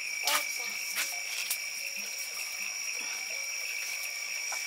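A steady high-pitched chorus of calling frogs and insects, with a few light knocks in the first second and a half.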